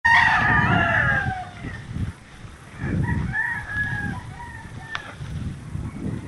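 A rooster crowing twice: a long crow that falls in pitch at the start, and another shortly past the middle. Gusty wind rumbles on the microphone underneath.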